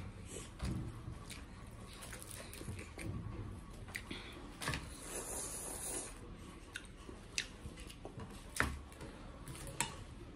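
Quiet eating and table sounds: chopsticks stirring and lifting noodles on a plate, with scattered small clicks and soft squelches, and some chewing.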